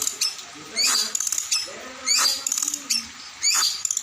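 A songbird singing the same short phrase over and over, about every second and a quarter. Each phrase is a high whistle that falls in pitch, then a quick run of chattering ticks.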